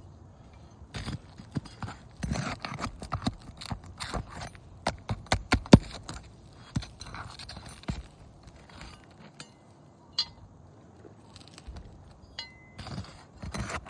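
Hand roofing tools working an asphalt shingle repair: irregular metal taps, knocks, clinks and scrapes, busiest in the first half and sparser later. A short high beep sounds near the end.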